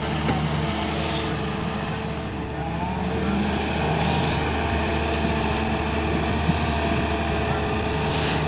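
Volvo EW130 wheeled excavator's diesel engine running steadily under load as it digs and swings its bucket. Near the end there is a brief hiss as a bucketful of soil pours out.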